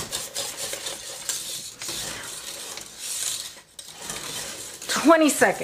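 Wire whisk stirring thick pastry cream in a large stainless steel pot, the wires scraping and clicking against the metal, with a brief pause about three and a half seconds in.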